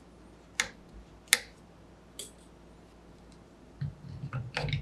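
Sharp clicks and handling knocks as a smartphone in a clip mount is fitted onto a Manfrotto compact tripod's 3-way pan/tilt head: two loud clicks in the first second and a half, a fainter one after, then a quick cluster of clicks and knocks near the end.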